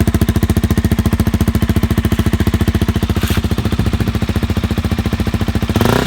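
KTM RC200's single-cylinder four-stroke engine idling through a Yoshimura R77 full-system exhaust with VMAX Racing midpipe, its silencer insert fitted: a steady, rapid, even pulse, getting a little louder just before the end.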